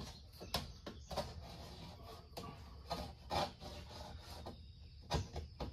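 A dull razor blade scraper scraping soaked, old window tint film and its adhesive on car window glass in short, irregular strokes. The film is stuck hard and comes off only a little at a time.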